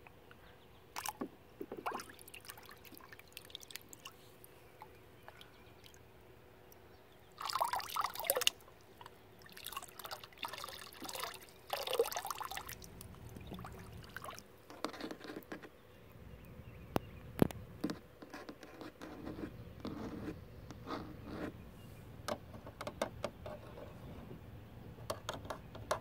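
Hands splashing and swishing water in a small pool while handling plastic toys, with drips and a few light taps on plastic. The splashing comes in bursts about a third of the way in and again over the next few seconds.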